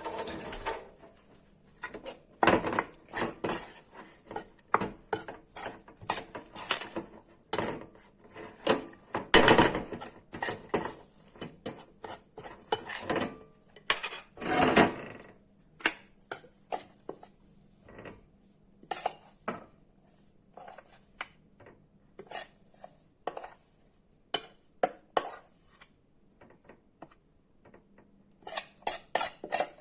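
A spoon clinking and scraping against a bowl in irregular strokes while ingredients are handled, with busier stretches and sparser taps in between.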